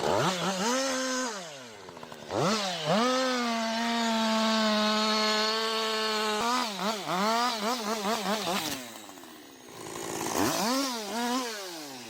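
Two-stroke chainsaw engine revving: it climbs to high revs, holds steady for about four seconds, then is blipped up and down several times in quick succession, drops back and revs up again near the end.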